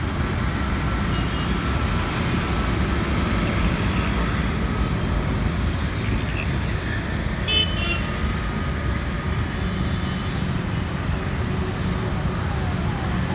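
Steady road traffic noise, with a short car horn toot about seven and a half seconds in.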